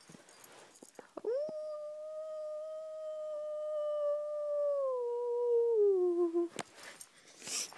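A single long wolf-style howl, held on one steady pitch for about four seconds, then dropping lower near the end before it cuts off. Brief rustling follows.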